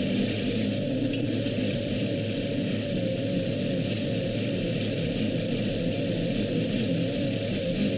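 Sport Modified race car's GM 602 crate small-block V8 running on the track, heard from inside the car under a steady hiss, its pitch wavering slightly up and down.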